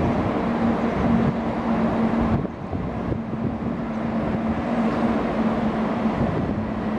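Rolling noise of the departing passenger train's coaches on the rails: a steady rumble with a constant low hum, dipping briefly about two and a half seconds in.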